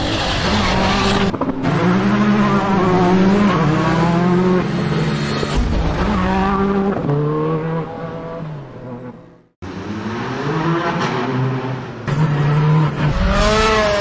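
Racing engines revving hard, pitch climbing and dropping through repeated gear changes, in several passes cut together; one fades away and cuts off sharply about nine and a half seconds in, then another revs up again, loudest near the end.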